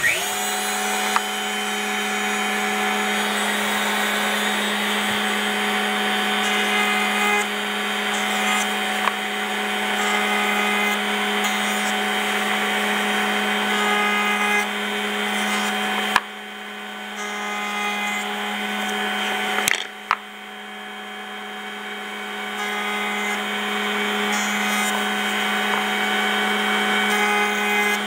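Bosch 1617 EVS router mounted in a router table starts up suddenly and runs at a steady pitch, chamfering the edges of small hardwood coaster pieces as they are fed by hand along the fence. The level dips briefly twice in the second half.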